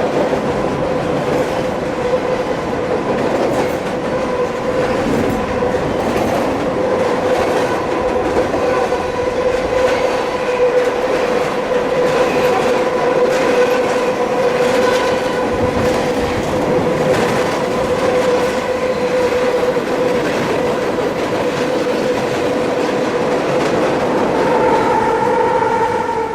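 Train passing at speed on the Union Pacific line: loud, steady rumble and clatter of the cars with a rhythmic clickety-clack, and a steady high tone running through it. It stops right at the end.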